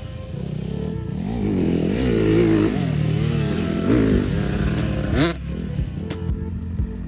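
Vehicle engine revving up and down over and over, its pitch rising and falling several times, with a short knock about five seconds in.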